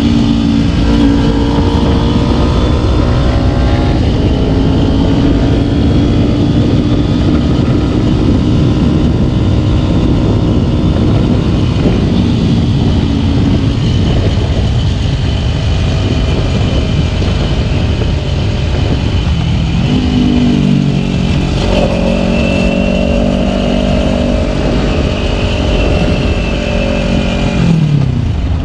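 Kawasaki Ninja 250 engine under way, heard over heavy wind noise on the microphone. The engine note holds fairly steady, changes about twenty seconds in, and falls away near the end as the bike slows.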